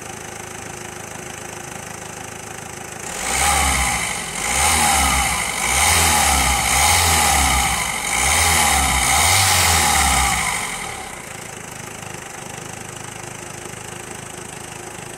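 2017 Peugeot Partner's 1.6 HDi four-cylinder turbodiesel idling, then revved about five times in a row, each rev rising and falling in pitch, before settling back to a steady idle. The engine sounds healthy, "sweet as a nut".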